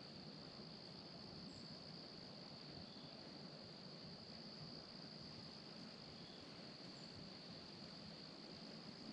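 Faint, steady chorus of crickets: one continuous high trill that does not let up.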